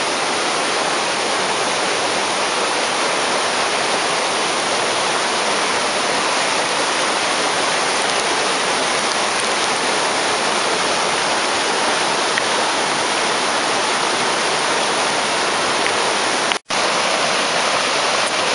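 A small creek in flood, risen from a trickle to a river, rushing fast and steady through grass and brush. The sound cuts out for an instant near the end, then carries on.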